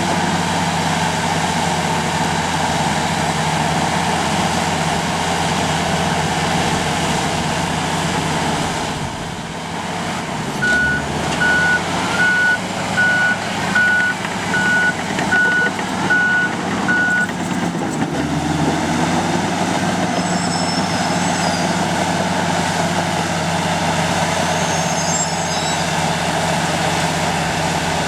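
Komatsu D85 bulldozer's diesel engine running steadily under work. Partway through, its reverse alarm beeps about nine times at an even pace, the sign that the dozer is backing up.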